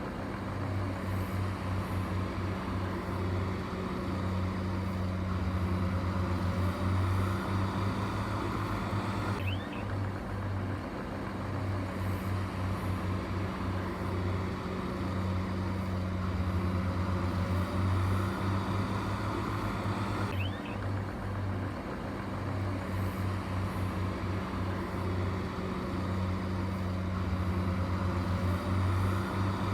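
A heavy construction machine's engine running steadily with a low hum, the same stretch of sound recurring about every eleven seconds.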